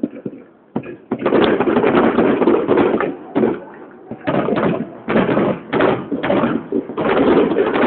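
Aerial fireworks bursting in rapid succession: a few separate bangs, then from about a second in a dense barrage of overlapping bangs in clusters.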